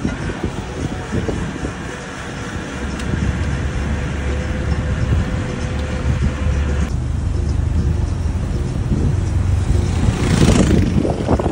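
Road vehicle on the move: steady engine and road rumble with a rush of air noise, which swells into a louder rush near the end.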